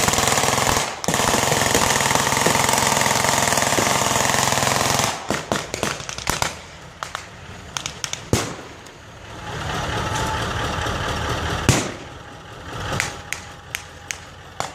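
Machine gun firing blanks in a long sustained burst for about five seconds, with a short break about a second in. After it come scattered rifle shots, two louder single shots, and another steady stretch of noise between them.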